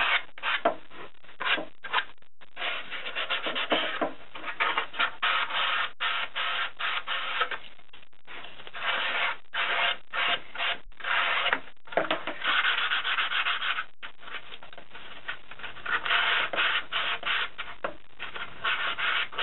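Hand sanding with P180 sandpaper along the rough cut cardboard edges of a large hollow letter: quick back-and-forth rubbing strokes in runs, broken by short pauses.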